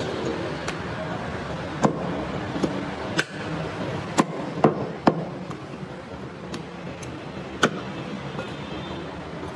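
Butcher's knife knocking against a wooden chopping block while cutting goat meat: about a dozen sharp knocks at uneven intervals, the loudest in the middle, over steady background noise.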